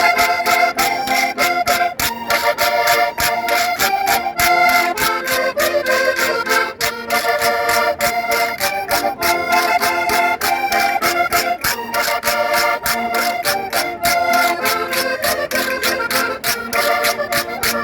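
Concertinas (diatonic button accordions) playing a lively traditional folk dance tune, with quick-changing notes over steady chords.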